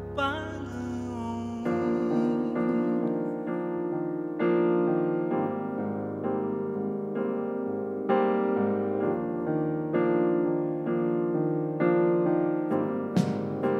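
Live band music: a slow instrumental passage led by keyboard chords, a new chord struck about twice a second. A short sliding note sounds in the first second, and drum and cymbal strikes come in near the end.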